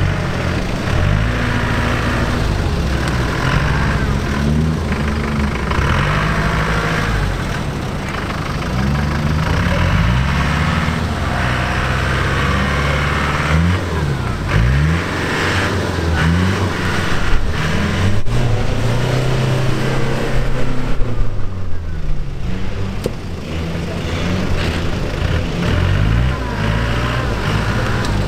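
Land Rover Defender's engine revving repeatedly, its pitch rising and falling again and again as it works the vehicle through mud.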